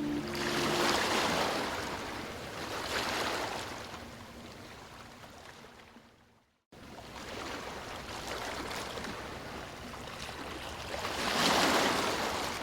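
Ocean waves washing onto a beach, each wave swelling and then receding. The sound fades and drops out to silence for a moment about halfway through, then returns, with a louder wave breaking near the end.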